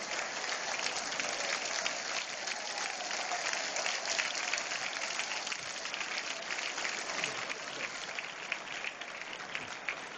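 Large street crowd applauding: a dense, continuous patter of clapping that eases slightly toward the end.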